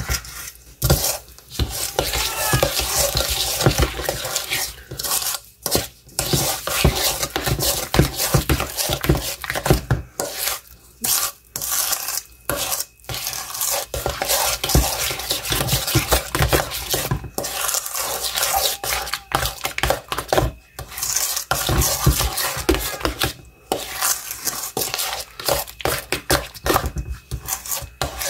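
A metal spoon stirring and scraping softened cream cheese with sugar in a stainless steel bowl, clinking against the metal, in repeated strokes broken by a few short pauses.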